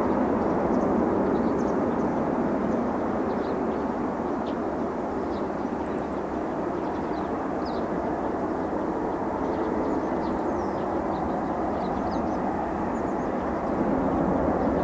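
Jet noise from a Boeing 747-8 freighter's four GEnx engines as it lands: a steady, even sound that grows louder again near the end as the jet rolls out on the runway.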